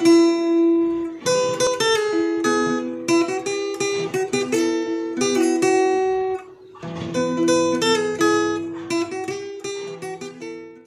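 Acoustic guitar music, a stream of plucked notes and chords. It dips briefly a little past halfway, then carries on and dies away near the end.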